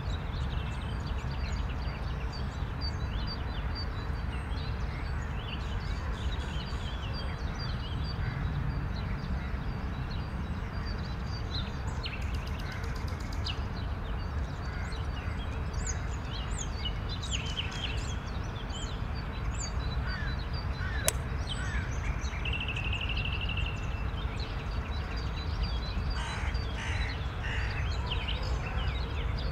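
Outdoor ambience of many birds calling in short, scattered chirps and calls over a steady low rumble, with one brief held whistle-like note a little after the middle.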